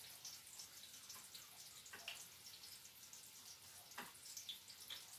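Faint crackling sizzle of battered fennel frying in hot oil in a pan, with two light clicks of tongs against a plate about two and four seconds in.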